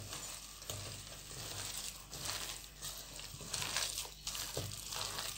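A hand mixing sliced onions, green chillies and herbs into thick gram-flour batter in a steel bowl: soft, irregular rustling and squishing with a few light knocks.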